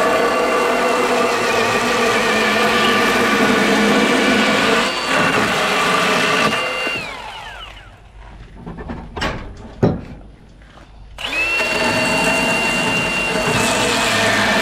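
Small gasoline chainsaw running at high revs as it cuts a point on a wooden fence post. About seven seconds in it drops away for about four seconds, with a few sharp knocks, then revs back up to full speed.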